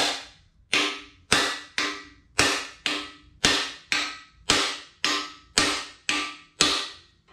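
Hammer striking a steel bearing driver about thirteen times, roughly two blows a second, each hit sharp with a short metallic ring. The blows are driving a new balance shaft bearing into its bore in a Mitsubishi 4G63 engine casting.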